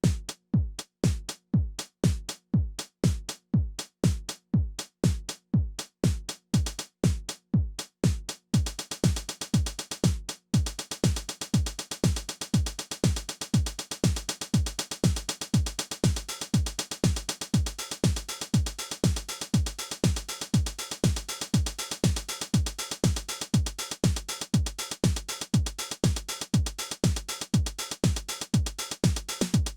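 Behringer RD-9 drum machine playing a steady four-on-the-floor pattern, its bass drum hitting about twice a second; about eight seconds in, busy hi-hats and cymbals join the kick, with a brief break around ten seconds.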